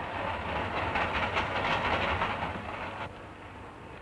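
A steady hissing rush with a faint rapid rattle in it, which cuts off abruptly about three seconds in.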